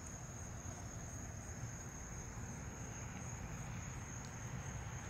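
A cricket's steady high trill, unbroken throughout, over a low rumble of road traffic.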